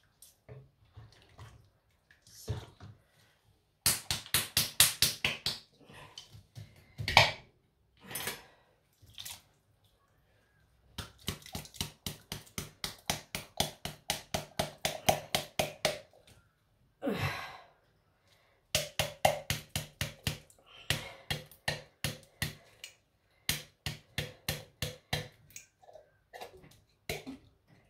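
Glass jar of chickpeas shaken upside down over a pot of stew: runs of quick, even knocks and splashes, about five a second, as the chickpeas drop into the liquid. The runs stop and start several times.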